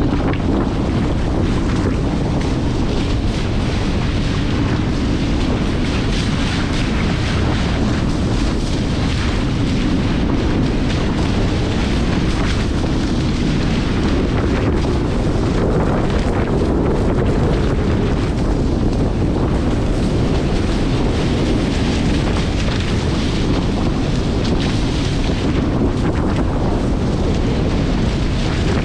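Strong wind buffeting the microphone of a GoPro aboard a Hobie 16 catamaran under sail. A loud, steady, low rumble runs with a hiss of water and spray over it and no let-up.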